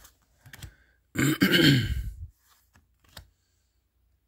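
A man clearing his throat once, about a second in, a rough rasp lasting about a second. A few faint clicks of trading cards being handled come around it.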